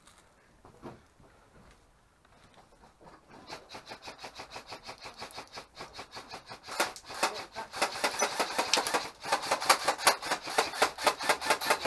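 Airsoft rifles firing on full-auto: a rapid rattle of about seven shots a second begins a few seconds in, then grows louder from about seven seconds in as broken bursts.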